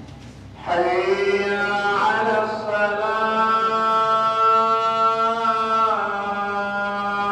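A solo voice chanting in long held notes. It comes in about a second in with an upward slide, holds one steady note for several seconds, and moves to a new note near the end.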